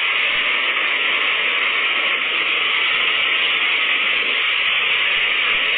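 Hurricane wind and rain making a loud, steady rushing noise.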